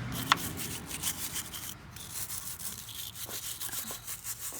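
Wire brush scrubbing metal in quick repeated rasping strokes, cleaning rust and grime off before a new neutral safety switch is fitted, with one sharp click about a third of a second in.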